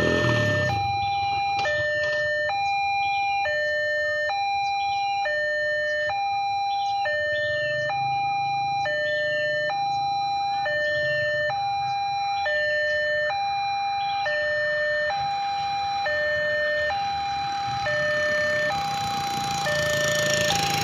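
Railway level-crossing warning alarm sounding while the barriers are down: an electronic two-tone signal that alternates a higher and a lower note, about one high-low cycle a second.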